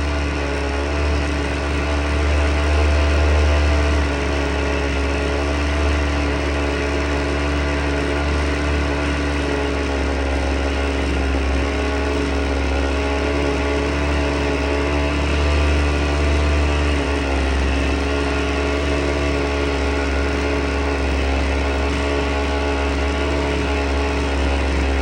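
Husqvarna 50 chainsaw's two-stroke engine running steadily, its pitch holding level throughout.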